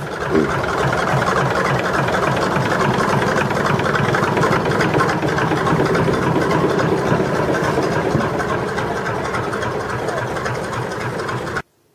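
Massey Ferguson 135's Perkins AD3.152 three-cylinder diesel running steadily, still cold shortly after an unassisted cold start. It cuts off suddenly near the end.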